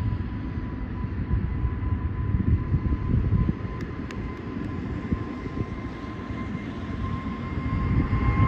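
Boeing 777's General Electric GE90 turbofans at takeoff thrust: a deep rumble with a steady whine, growing louder near the end as the airliner climbs out.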